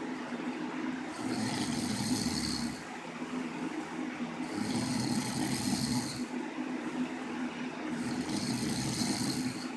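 Cat snoring in a slow, even rhythm, about three breaths: each breath alternates a hissing part with a lower rumble.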